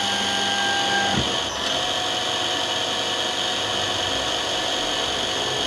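Small high-speed spindle motor of a computerized eyeglass-lens drilling machine running with a steady high whine while it drills holes in lenses. About a second in, the tone shifts briefly before it settles again.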